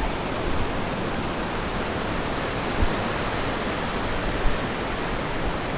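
Steady rush of surf breaking and washing up a sandy beach, with a low rumble of wind on the microphone.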